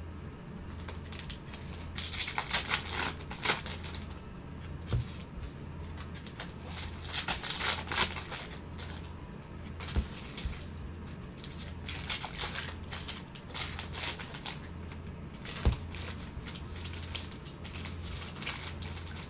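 Trading-card packs and their foil or plastic wrapping crinkling and rustling as they are handled, in irregular bursts with a few sharp taps, over a low steady hum.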